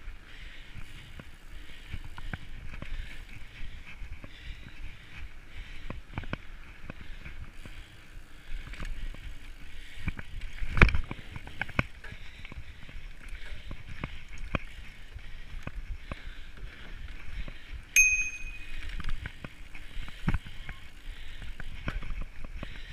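Mountain bike riding down a dirt trail: the tyres roll on dirt while the bike rattles and knocks over bumps. One hard knock comes about halfway through, and a single short metallic ring comes later.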